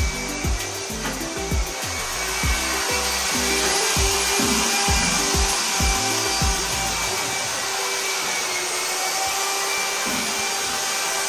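Heavy rain falling, a steady hiss. Background music plays over it, and its low beat stops about seven seconds in.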